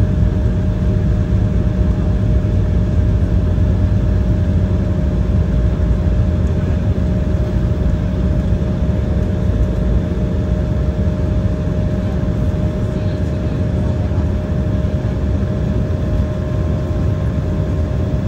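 Steady cabin noise inside an Embraer E175 airliner rolling on the ground after landing: a low rumble under a steady engine hum.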